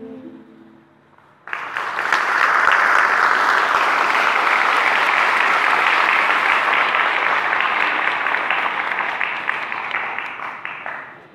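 Audience applauding: a song with singing fades out, then clapping breaks out suddenly about a second and a half in, holds steady for about nine seconds and dies away near the end.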